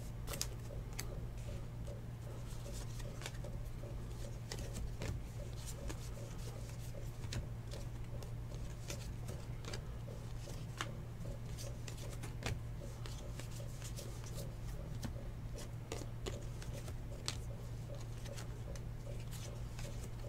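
Trading cards being sorted by hand: faint, scattered clicks and slides of card stock against card stock, over a steady low hum.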